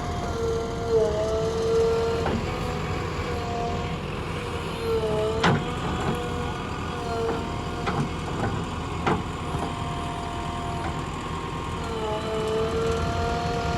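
Heavy diesel engine running steadily, its note dipping in pitch three times as it takes load. Several sharp knocks cut through in the middle.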